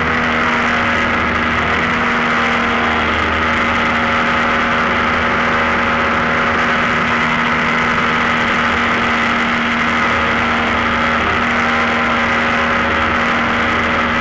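Extreme Flight MXS 64-inch radio-control aerobatic plane's motor and propeller running at a steady throttle, heard from the plane's onboard camera together with airflow noise.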